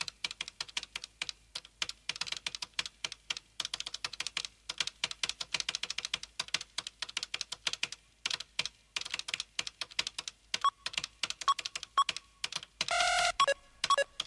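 Rapid typing on a computer keyboard, several keystrokes a second. Short electronic beeps come in over the typing near the end, followed by one longer electronic tone about a second before the end.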